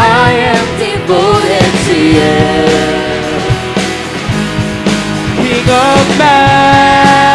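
Live worship band playing: several voices singing together over electric guitars, keyboard and drum kit, ending on one long held sung note.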